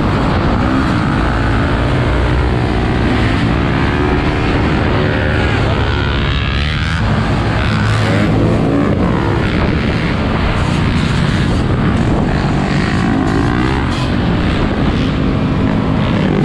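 Motorcycle and ATV engines running at speed, revving up and down, over heavy wind rumble on the microphone.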